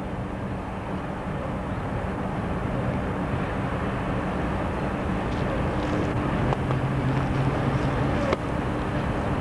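Sydney W-set electric suburban train approaching slowly, its running noise and low motor hum growing steadily louder. Two sharp clicks come in the last few seconds.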